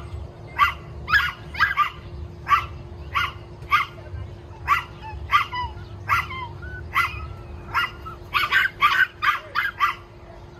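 Dogs barking repeatedly, one sharp bark every half second to a second, quickening into a rapid run of barks near the end.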